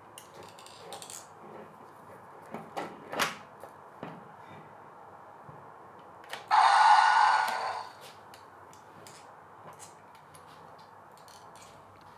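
Plastic joints of a Scorpios Rex action figure clicking and rattling as its head and arms are posed, with a few sharper clicks about three seconds in. About six and a half seconds in comes a loud rasping burst lasting over a second.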